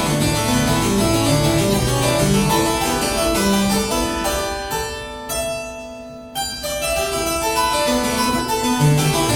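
Solo harpsichord playing fast runs of plucked notes. A little past the middle the runs thin out to a few ringing, fading notes, then the fast figures start up again.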